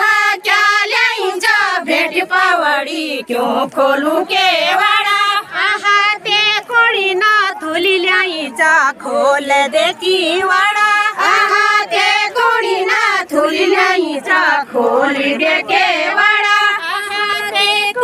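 A group of women singing a Garhwali jhumailo folk song together, their voices overlapping in a loud, continuous chorus.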